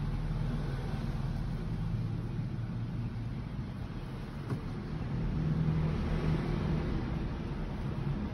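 Steady low hum of a running motor-vehicle engine, swelling slightly about five and a half seconds in, with a single faint click a little before that.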